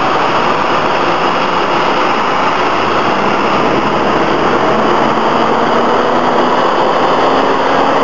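Box delivery truck's engine running as the truck moves off, loud and steady, with a faint tone that slowly rises in pitch in the second half.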